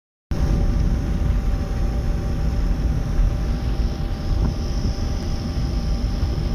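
A car driving at a steady speed, heard from inside the cabin: a constant low rumble of engine and road noise with a faint steady engine hum.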